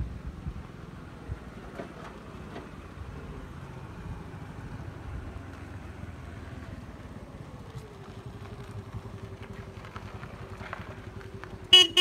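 Wind buffeting the microphone while a motor vehicle's engine hum comes in about eight seconds in and holds steady. Near the end, a vehicle horn honks twice in quick succession, loud and short.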